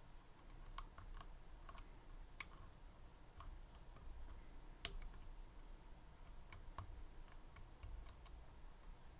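Lock pick working the pins of a Medeco M3 high-security lock: faint, irregular small clicks, with a couple of sharper ones.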